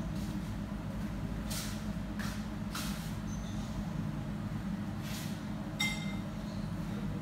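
Kitchen ambience: a steady low hum with a few brief swishes, and one sharp ringing clink about six seconds in.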